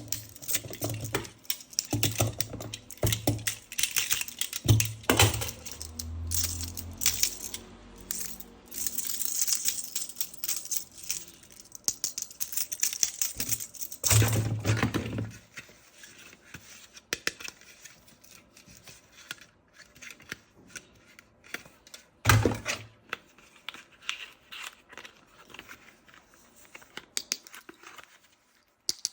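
Packaging and plastic toy parts being handled during an unboxing: rustling and tearing with many small clicks and knocks. It is busiest in the first half, then thins out to scattered clicks, with one short loud rustle a little after twenty seconds.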